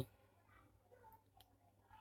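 Near silence: room tone in a pause between spoken sentences.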